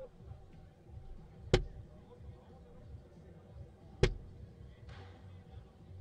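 Two soft-tip darts striking an electronic dartboard: sharp knocks about two and a half seconds apart, each with a short ring, over a low murmur in the hall.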